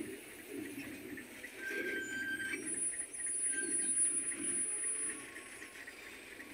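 Freight train rolling slowly into a station, its steel running gear giving off thin high-pitched metal squeals that come and go over a low uneven rumble; the squealing fades after about five seconds.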